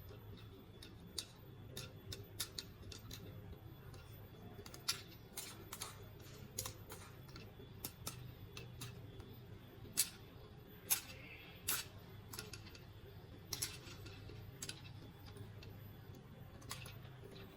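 Irregular sharp clicks and taps of plastic toys and packaging being handled during an unboxing, a few louder snaps about ten and eleven seconds in, over a low steady hum.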